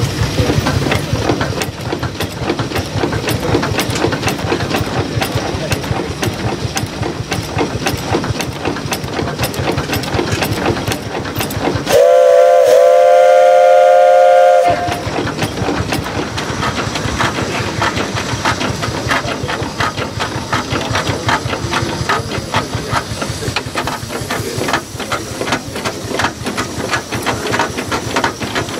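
1920 Advance Rumely steam traction engine running with a fast, even beat and steam hiss. About twelve seconds in, its steam whistle blows one loud note for about two and a half seconds; the pitch wavers at the start, then holds steady.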